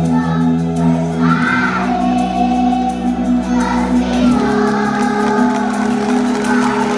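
Background music: a song with a sung melody over held chords and bass notes, the chords changing twice.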